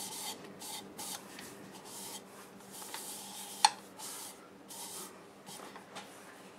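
Folded paper towel wiping finish onto the outside of a turned cherry bowl: a run of short, hissy rubbing strokes, with one sharp click about three and a half seconds in.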